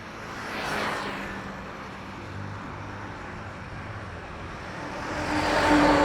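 Vehicle engine noise swelling as traffic passes close by: a smaller rise about a second in, then a louder pass with a steady hum building near the end.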